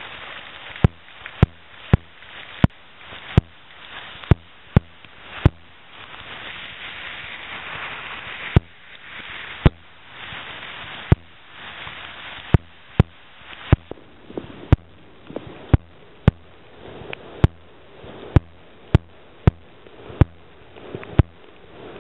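Steady rain with loud, sharp, irregular taps a little more often than once a second, like big water drops striking right by the microphone. The rain swells for a few seconds midway.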